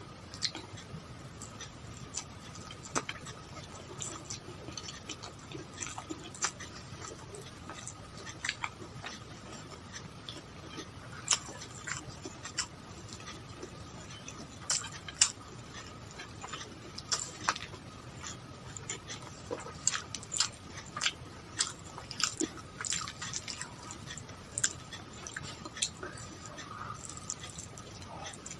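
Close-up chewing and mouth sounds of a person eating, irregular short clicks at an uneven pace, over a faint steady hum.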